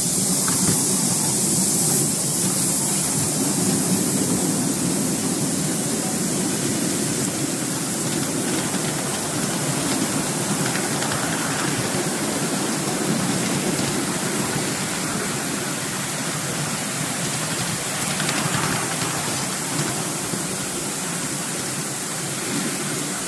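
Miniature steam train running with passengers aboard: a steady rushing noise of the wheels on the rails and the locomotive's steam, with a sharper steam hiss in the first few seconds as it pulls away.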